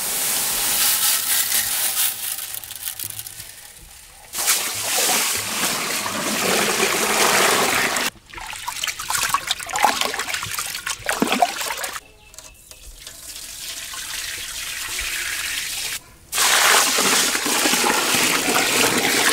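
A string of short clips, each cut off sharply: dry raw rice grains pouring from a plate into a large aluminium pot, and near the end water poured onto rice in an aluminium pot, splashing and trickling.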